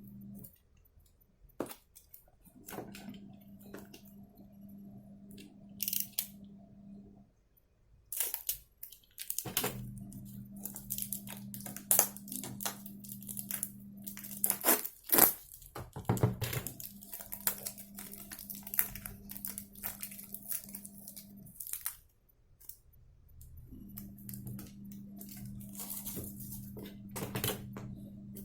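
Packaging being unwrapped and handled: tearing, crinkling and rustling with scattered sharp clicks. Under it runs a low steady hum that stops and starts several times.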